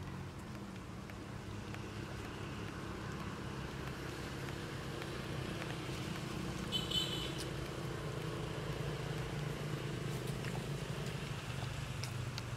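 Steady low motor hum. A short, high-pitched squeak comes about seven seconds in.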